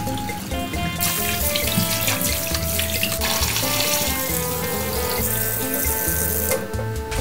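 Kitchen tap running into a stainless steel bowl of raw chicken livers and gizzards in the sink while hands rinse them. The water comes on about a second in and stops shortly before the end.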